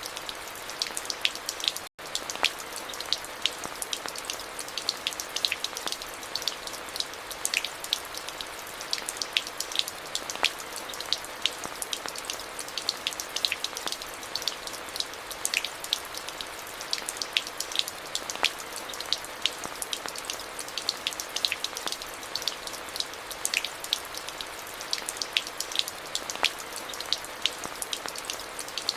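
Steady rain, a constant hiss with little low end, dotted with many close, separate drop ticks. The sound cuts out for an instant about two seconds in.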